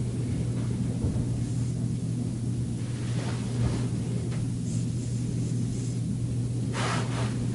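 Steady low hum of room noise, with the rustle of bedding as someone shifts under the duvet, briefly about three seconds in and more strongly near the end.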